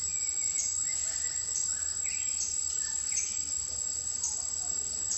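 Forest insects keeping up a steady high-pitched drone, with a pulse in it about every second. A few short, high chirping calls sound over it.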